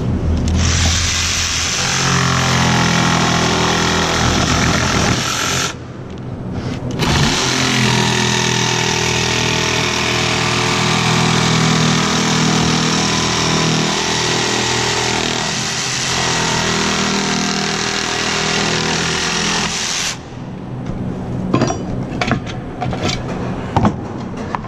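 A power tool running loud in two long runs, the first about five seconds and the second about thirteen, with a short break between. Several sharp knocks follow near the end.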